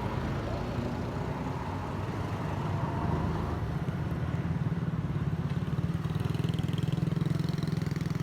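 A motor vehicle's engine running steadily, its drone growing a little louder after about five seconds.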